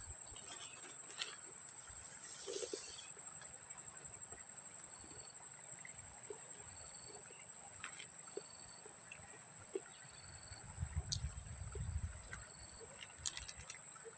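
Steady high-pitched insect drone, with short faint chirps repeating every second or so, a few small clicks, and a brief low rumble near the end.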